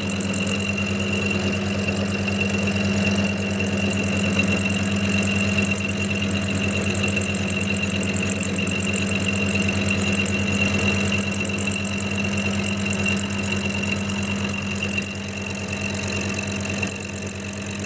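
Clarke CL430 metalworking lathe running as a mill, its dovetail cutter taking a slow cut along a mild steel block: a steady motor hum with a constant high whine.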